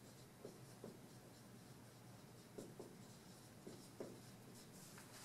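Dry-erase marker writing on a whiteboard: faint, short squeaking strokes as words are written.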